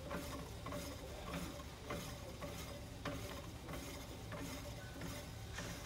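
A setting sleeve adapter being hand-threaded onto the shear mandrel of a Baker 20 setting tool. Gloved hands rub and scrape on the metal sleeve, with a light click roughly every half second as it is turned.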